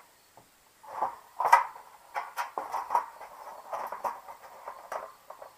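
Small screws being picked up and fitted into a seam of a patio heater's sheet-metal reflector hood: irregular light clicks, scrapes and metallic rattles with a few sharper knocks, starting about a second in.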